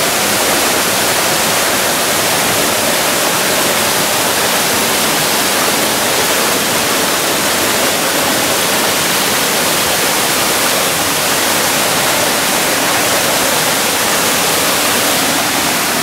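Waterfall water rushing and cascading over rocks: a loud, steady rush that does not change.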